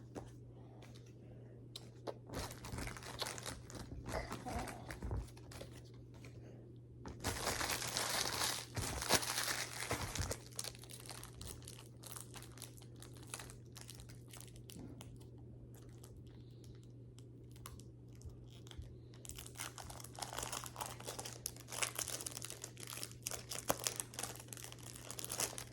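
Foil Pokémon card booster pack wrapper being torn open and crinkled, in several bouts of rustling, the loudest about seven to ten seconds in. A steady low hum lies underneath.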